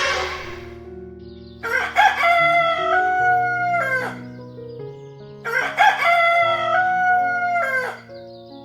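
Rooster crowing twice, two long calls a couple of seconds apart, each ending with a drop in pitch, over background music.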